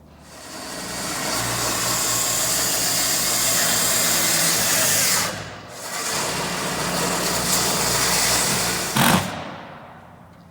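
A power tool running loudly in two long runs, with a short break about five seconds in. A sharp knock comes about nine seconds in, and then the tool fades out.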